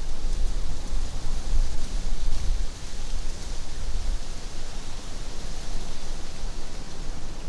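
Breezy wind buffeting the microphone in uneven gusts, over a steady high hiss.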